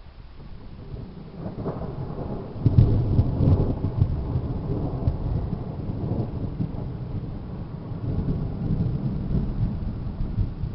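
Thunder rumbling. It builds about a second and a half in, comes to a loud peak near three seconds, then rolls on in deep swells.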